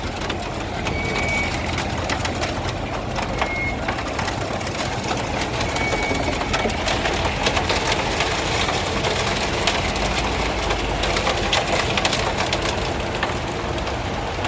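Heavy truck's engine running steadily with a low hum, with rattles and knocks over it. A short high beep sounds about every two to three seconds through the first half, like a reversing alarm.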